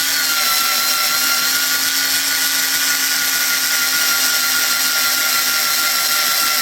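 Electric power driver with a hex bit running steadily with a high motor whine, driving a screw into a wheelie bar mount.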